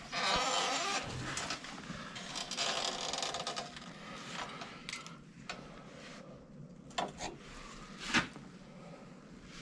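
Hot steel railroad spike being twisted in a vise with a turning handle: metal scraping and creaking in two stretches, then a few sharp clicks of metal on metal near the end.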